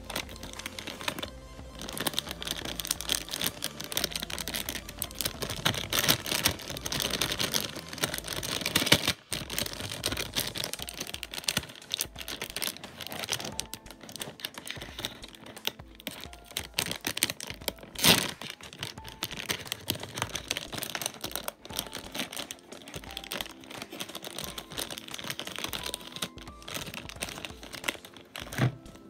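Foil blind-bag packaging crinkling and rustling as it is handled and opened, with one sharp, loud crackle a little past the middle. Background music plays underneath.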